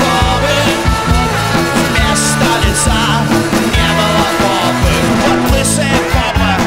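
Rock band playing live: electric guitars, bass guitar and drums, with a singer.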